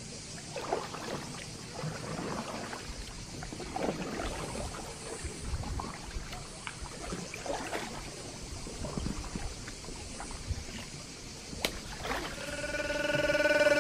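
Double-bladed paddle dipping and splashing in lake water as an inflatable canoe is paddled away from the bank, a soft irregular stroke every second or two. Music fades in near the end.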